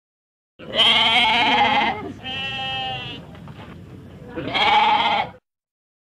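Goat bleating three times: two loud calls of about a second each, with a quieter call between them.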